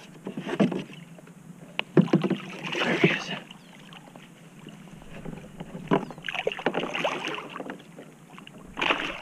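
Hooked redfish thrashing and splashing at the water's surface beside a kayak, in several bursts of splashing with sharp knocks.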